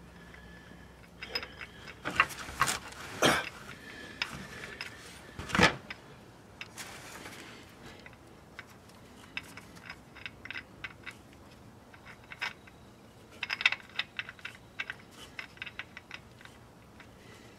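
Scattered metal clicks and clinks of tools and a threaded fitting being worked at a transmission-case drain hole. A few louder knocks come between two and six seconds in, and a quick run of clicks comes near fourteen seconds.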